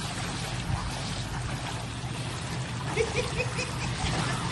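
Pool water splashing and sloshing as children paddle and play in a swimming pool, over a steady low hum. About three seconds in, a child gives a short run of quick repeated calls.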